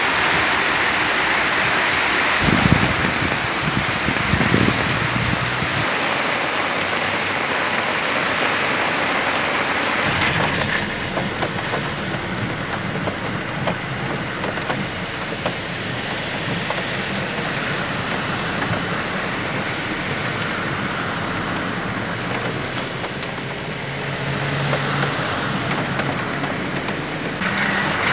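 Muddy floodwater rushing along a street in heavy rain, with cars driving through it and their tyres throwing up water. A car splashes through near the end, its engine audible under the spray.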